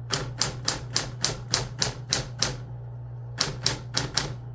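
Typewriter keys struck one after another at about four a second, pausing for about a second midway before the typing resumes, over a steady low hum.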